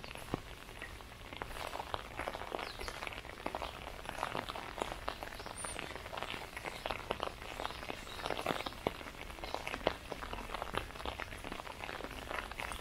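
Light rain tapping irregularly on an umbrella held overhead, mixed with footsteps on the path.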